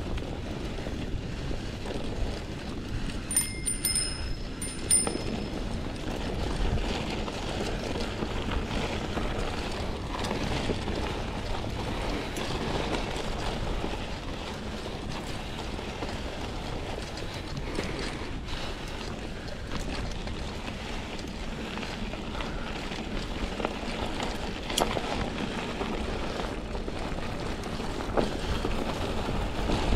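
Trek Marlin 5 mountain bike ridden off-road: a steady rush of tyre and wind noise with small clicks and rattles from the bike. A short high ring sounds twice about four seconds in.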